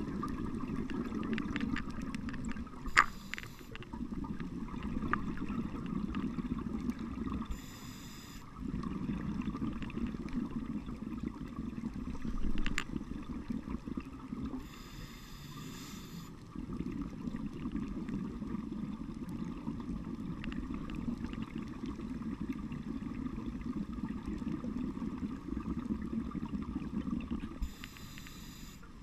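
Scuba breathing heard through an underwater camera housing: long, rough bubbling exhales, broken every several seconds by a short hissing inhale through the regulator. A sharp click sounds about three seconds in.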